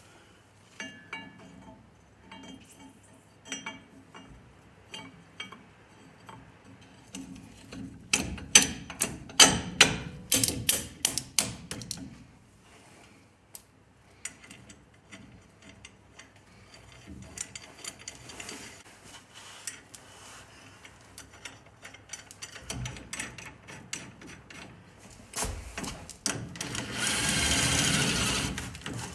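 Metal parts clinking and knocking as U-bolts and an axle mount are fitted to a Chevy C10's rear leaf spring, with a cluster of sharp knocks about eight to twelve seconds in. Near the end a cordless power tool runs for a few seconds, tightening the U-bolt nuts.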